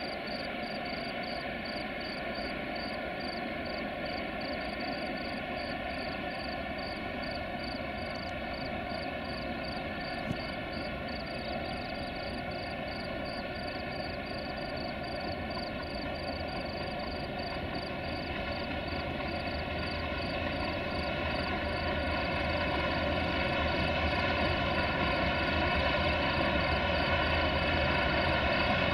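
Two Sulzer-engined CFR Class 060-DA (LDE2100) diesel-electric locomotives working hard as they haul a tank train up a steep grade. A steady, many-toned engine drone, heard from a distance, grows louder and deeper in the last third as the train draws closer.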